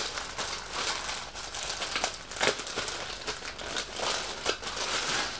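Thin clear plastic bag crinkling as it is handled and pulled open, with irregular sharp crackles.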